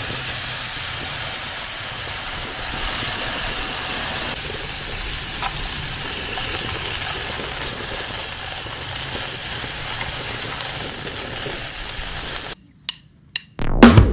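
Beef slices sizzling on a hot grill pan, a steady hiss that cuts off abruptly about twelve and a half seconds in. Drum-kit music starts near the end.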